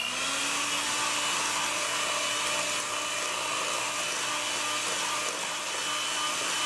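Electric hand mixer beating cream cheese, sugar and sour cream in a stainless steel bowl: the motor comes up to speed right at the start, then runs at a steady whine.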